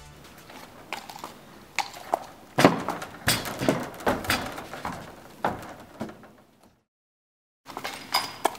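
Fjord pony's hooves knocking and thudding irregularly on a horse trailer's ramp and floor as it walks in. The sound cuts out for about a second near the end, then the hoof knocks resume.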